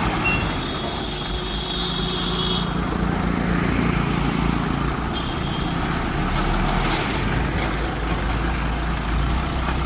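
Bulldozer's diesel engine running steadily under work, with a thin high-pitched whine over it near the start and again briefly about five seconds in.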